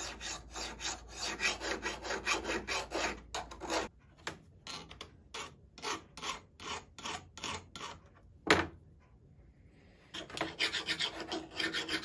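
A hand file rasping over the steel jaw of a pair of duck bill pliers to ease sharp edges. Quick back-and-forth strokes at about four a second slow to spaced single strokes, with one knock about two-thirds through. After a short pause the quick strokes start again near the end.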